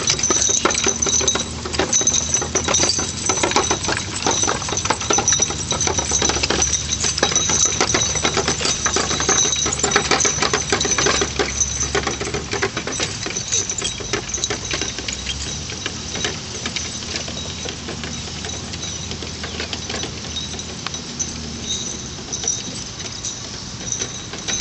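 Early-1900s John Deere farm wagon rattling and clattering, with harness chains clinking, as a pair of camels pulls it along. The clatter is densest at first and grows fainter as the wagon moves off.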